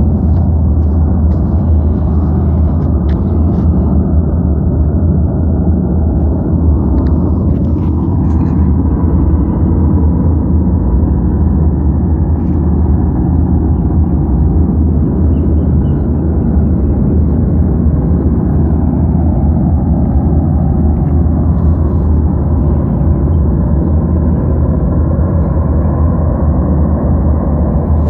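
Steady, loud, low rumbling drone that seemed to come from every direction, which the local government put down to a ruptured gas line about four miles away.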